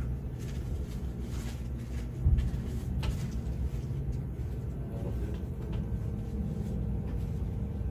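Distant airshow noise muffled by the control tower's windows: a low steady rumble, with a dull thump about two seconds in.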